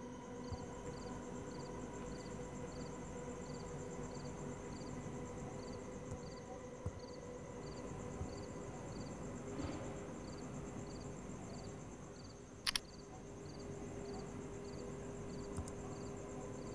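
Night insects, crickets, chirping steadily about twice a second over a continuous high trill and a faint steady hum. Scattered soft clicks of laptop keys, with one sharp double click about thirteen seconds in.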